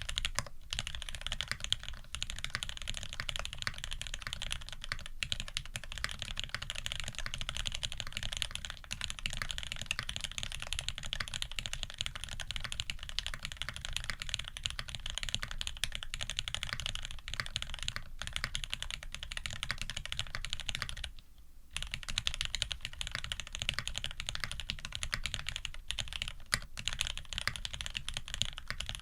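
Steady, fast typing on a custom TX65 v2 mechanical keyboard with lubed, filmed SP-Star White switches, a brass plate and GMK keycaps. The keystrokes run in a dense stream, with one brief pause about three quarters of the way through.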